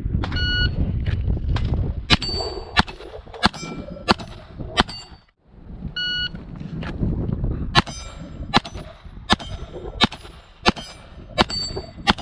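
Rapid .22 rimfire pistol shots from a Glock 44, each hit answered by the clang of a steel target ringing at its own pitch as the shooter moves between plates. Two strings of about eight shots each, with a short pause about five seconds in.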